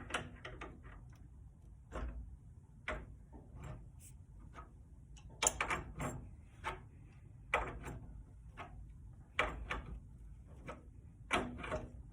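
Scattered clicks and knocks of hand tools and metal fittings being handled, about a dozen spaced irregularly a second or so apart.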